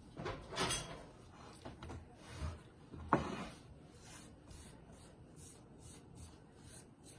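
Spoon stirring and scraping a thick cheesy dip mixture in a bowl. It starts with a few louder scrapes, then settles into lighter, regular strokes.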